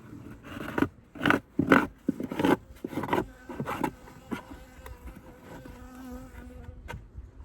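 Several sharp knocks and scrapes, then a honeybee buzzing close to the microphone with a steady drone that shifts in pitch near the end.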